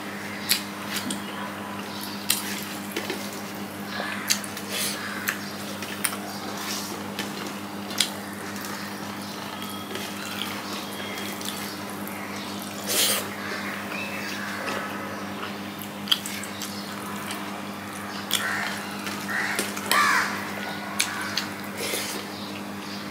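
Close-up wet chewing and mouth sounds of a person eating rice and fish curry by hand, with short clicks as fingers mix the rice on a steel plate. A steady low hum runs underneath.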